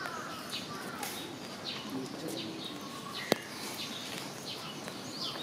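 Small birds chirping over and over, short high chirps roughly every half second, with one sharp click about three seconds in.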